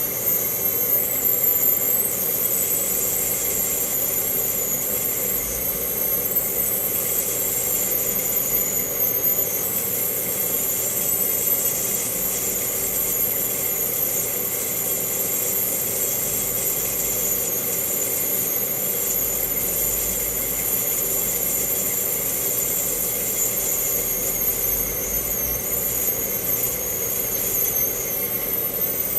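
Microwave oven running: a steady hum with a high, slightly wavering whine over it.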